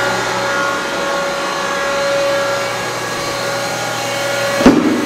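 Steady hum and whine of a running Citizen F16 CNC Swiss-type lathe, with one sharp knock about four and a half seconds in.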